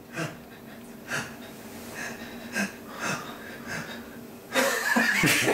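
A man breathing audibly in short nasal puffs, about one a second, then a louder, longer rush of breath near the end.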